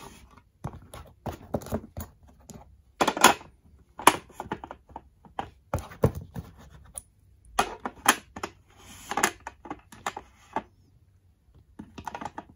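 Diecast metal coins clicking and knocking against a plastic display stand as they are set into its slots and pegs one by one. A short scraping sound comes about three-quarters through.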